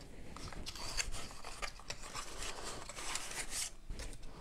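Hands handling cardboard packaging and a cable: an irregular run of short scrapes, rubs and light taps.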